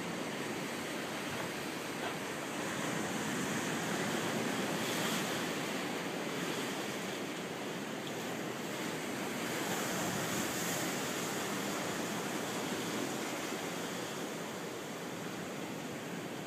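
Ocean surf washing in below: a steady rushing noise that swells and eases twice.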